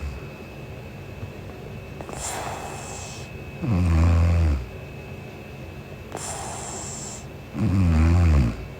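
A young woman snoring in her sleep: two loud, buzzing snores about four seconds apart, each about a second long, with a softer airy breath before each one.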